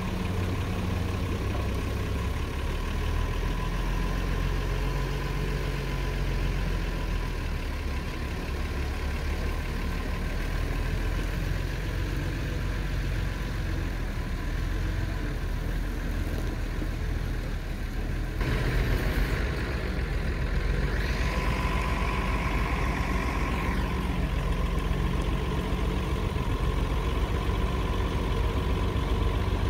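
A large forklift's engine idling steadily with a low hum. About two-thirds of the way through the sound changes abruptly and the engine note rises and falls for a few seconds.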